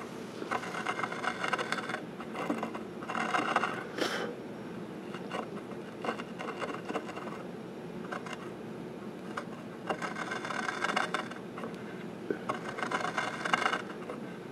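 Shop-made stringing cutter, a compass with a tiny saw blade copied from a Lie-Nielsen tool, scraping an arc-shaped groove for inlay stringing into a wooden table leg. Repeated scraping strokes of about a second each, a group near the start and another from about ten seconds in, with fainter strokes between.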